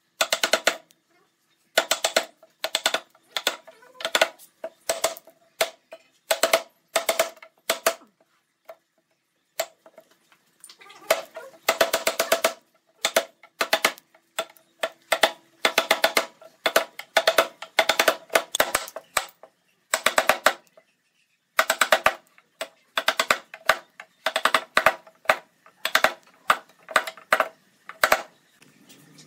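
Wood chisel being struck repeatedly, chopping notches into a wooden rail: quick runs of sharp knocks with short pauses between them.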